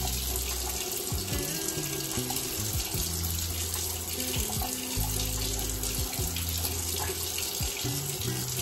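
Water running steadily from a tap, with background music and its low bass notes playing over it.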